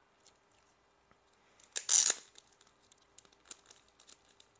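Thin plastic trading-card sleeve crinkling as the sleeved card is handled, with one loud rustle about two seconds in and scattered small clicks and crackles after it.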